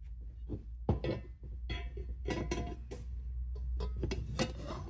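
Hard drive being fitted into its drive bracket: a string of irregular clicks, clinks and knocks from the parts being handled, over a steady low hum.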